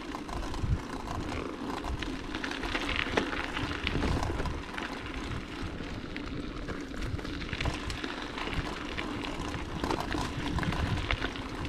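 Bicycle rolling along a rough dirt track: steady tyre noise on the earth, with frequent small rattles and clicks from the bike, over a low rumble of wind on the microphone.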